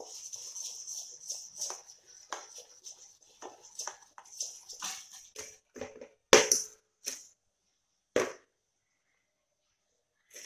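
Steel spoon stirring and scraping thick khaman batter around a steel pot, in quick irregular strokes. Then come three sharp knocks of the steel plate of batter on the counter, the first the loudest.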